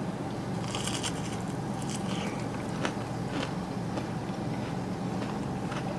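A person chewing and biting food, with small irregular crunches and clicks, over a steady low background hum.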